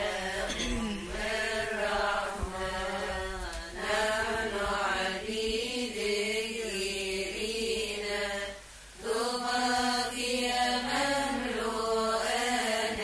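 A woman's solo voice chanting a Coptic Kiahk hymn to the Virgin Mary, drawing out a long wavering melismatic phrase with no clear words. There is a brief breath pause about two-thirds of the way through before the chant resumes.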